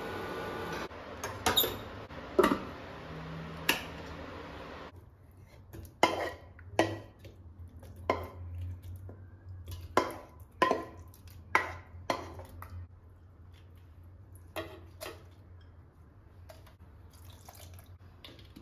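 A steady hiss from the wok on the induction cooktop, with a few knocks of a wooden spatula, stops about five seconds in. Then a run of about a dozen sharp knocks as the wooden spatula scrapes and taps fried onions and tomatoes out of the nonstick wok into a stainless-steel blender jar, followed by quieter handling.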